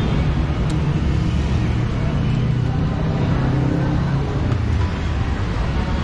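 Steady road traffic: vehicle engines running with a continuous low hum.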